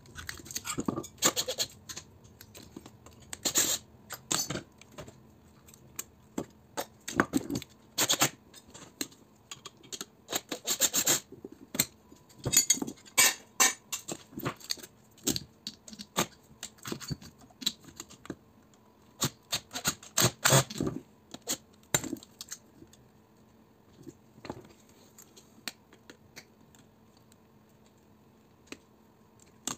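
Metal hand tools, pliers and a flat screwdriver, clinking, scraping and knocking against a small transformer's steel core and a steel bench plate as it is pried apart for scrap. The clatter comes in irregular bursts, busiest through the first two-thirds and thinning to occasional ticks after that.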